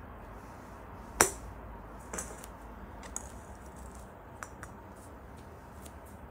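A golf wedge strikes a hollow plastic practice ball off an artificial-turf hitting mat with one sharp click about a second in, followed by a clear knock about a second later and a few light ticks and taps as the ball is put back on the mat and the club is set behind it.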